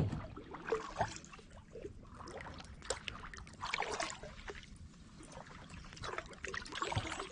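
Irregular knocks and splashes of water around a kayak, with small water trickles between them.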